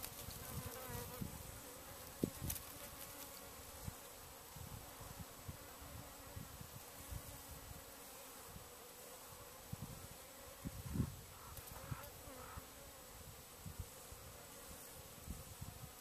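Faint, steady buzzing of flying insects, with uneven low buffeting on the microphone.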